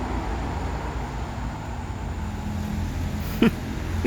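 Steady low rumble of road traffic, with two short sharp clicks near the end.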